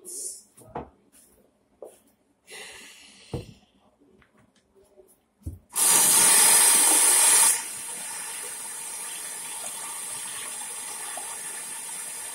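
A few light knocks and handling noises, then about halfway through a water tap is turned on. It runs hard for about two seconds, then more gently and steadily.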